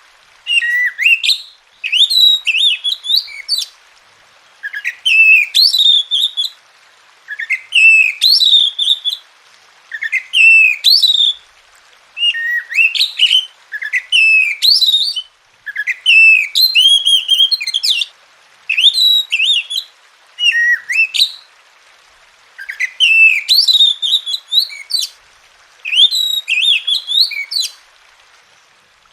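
Oriental magpie-robin singing loud, varied song phrases of rapid whistled and gliding notes, about a dozen phrases each a second or two long with short pauses between them. This is a recorded tutor song played to get a reluctant kacer to sing.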